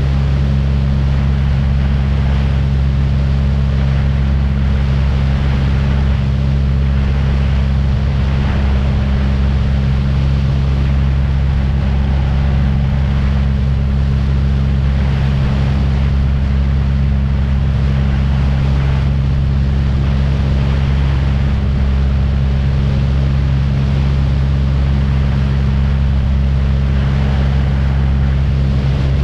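Small aircraft's engine running steadily in flight: a constant low drone with a few steady tones and a rushing hiss above them.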